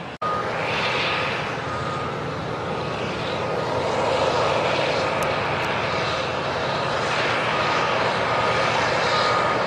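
A large bulldozer's diesel engine running under load with a steady roar, while a reversing alarm beeps at regular intervals.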